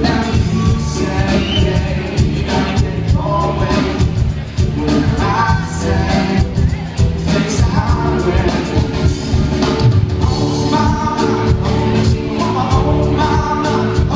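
Live rock band playing with vocals: a singer over drum kit and guitars, amplified through a club PA.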